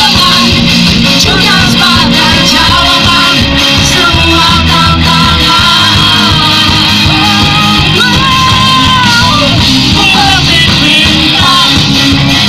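Live rock band playing loud, with electric guitars and a lead singer's melody over the top, heard from the audience.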